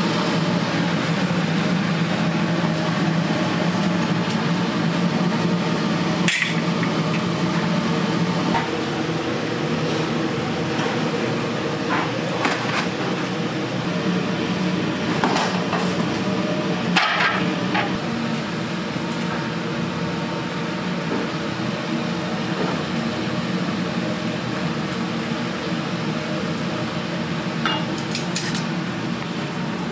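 Restaurant kitchen ambience: a steady mechanical hum, such as a ventilation fan, with a handful of sharp knocks and clinks of utensils and dishes scattered through.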